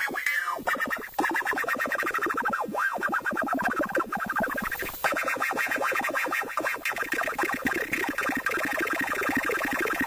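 Handmade Arduino drone/noise synthesizer playing a rapidly pulsing electronic tone with swooping pitch sweeps, changing character about five seconds in.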